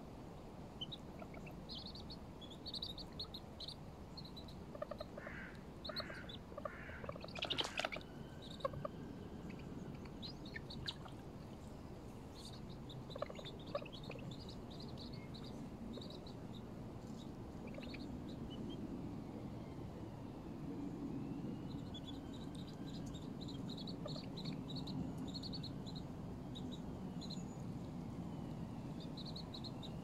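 Birds calling at a pond: many short high chirps throughout, with a run of about four louder calls some five to eight seconds in and a sharp click near eight seconds. A low steady rumble builds in the second half.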